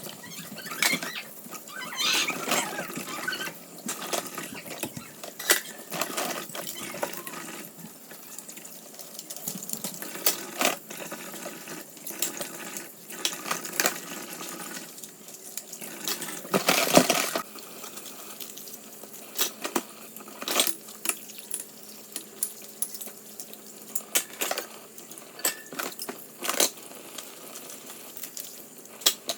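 Washing up at a kitchen sink: water running and splashing, with many clinks and knocks of dishes and utensils.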